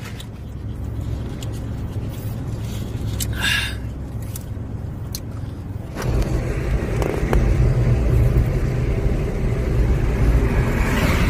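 Car cabin noise: a steady low hum with a few small clicks, then about six seconds in a louder, steady rumble of engine and tyres as the car drives along the road.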